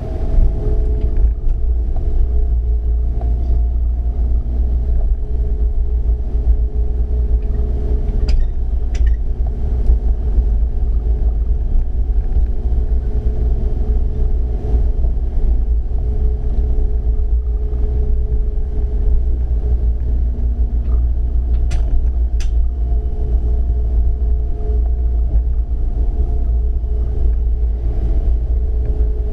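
Steady hum of a moored fishing boat's engine running, over a heavy low rumble, with a few faint ticks about 8 seconds and 22 seconds in.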